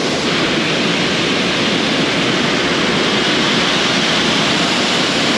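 Tea-processing machinery in a tea factory running with a loud, steady noise.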